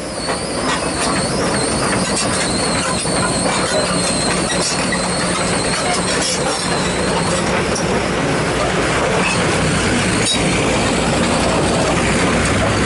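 Kobelco SK200 Acera Geospec crawler excavator running and travelling on its steel tracks: a steady loud mechanical noise with a faint high whine and light ticking from the track chain. The low engine rumble grows stronger about eight seconds in, and there is one sharp click just after ten seconds.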